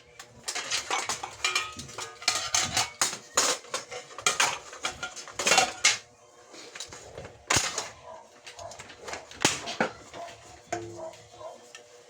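Dishes and utensils being handled: a dense run of clinks and clatters for about six seconds, then a few separate sharp knocks, fading near the end.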